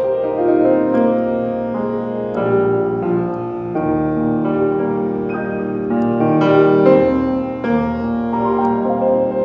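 Piano music: slow chords with a melody line, notes struck and left to ring.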